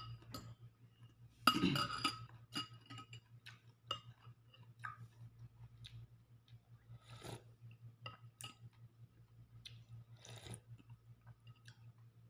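Metal spoon clinking and scraping against a ceramic bowl of noodles, loudest with a few ringing clinks about a second and a half in, followed by scattered light clicks and chewing.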